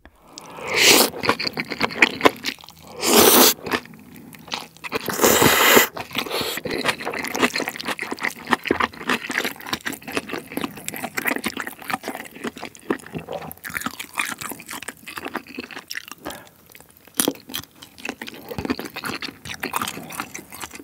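Close-miked eating of mala xiang guo (spicy stir-fried noodles and vegetables): three loud slurps of noodles in the first six seconds, then steady crunchy chewing.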